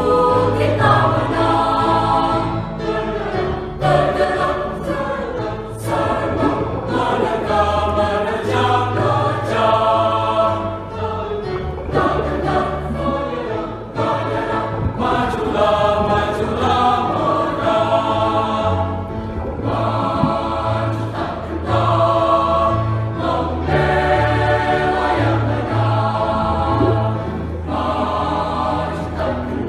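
Choral music: a choir singing held chords in phrases with a low accompaniment underneath.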